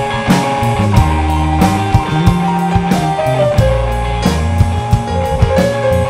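Live rock band playing: electric guitar and bass guitar over a drum kit, with frequent sharp drum and cymbal hits under held guitar notes.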